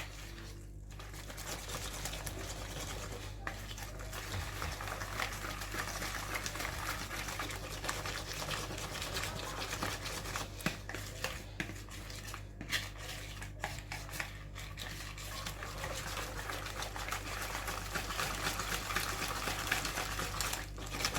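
A utensil stirring the lemon cheesecake filling in a bowl: continuous scraping with many small irregular clicks against the bowl.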